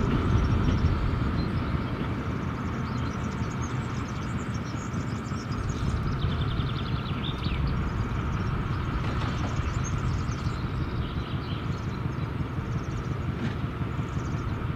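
Diesel engine of a BDZ class 75 narrow-gauge locomotive running steadily during shunting, a continuous low rumble.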